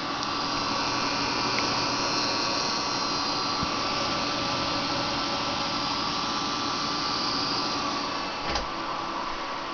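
Steady whirring of a desktop PC's case fans and CPU cooler fan running, with a single click about eight and a half seconds in.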